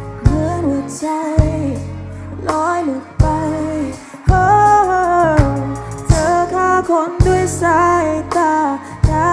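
Music: a woman singing a melody over strongly struck bass notes.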